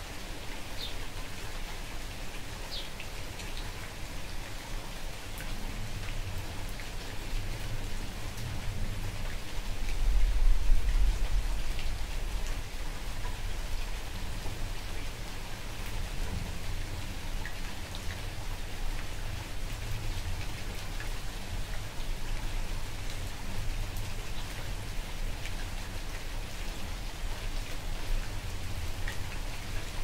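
Steady light rain falling, with scattered drops ticking. A low rumble swells for a couple of seconds about ten seconds in.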